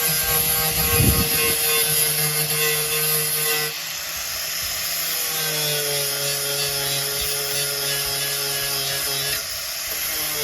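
Electric angle grinder running and grinding, a steady motor whine over high hiss. The whine drops out twice, about four seconds in and near the end, and comes back each time.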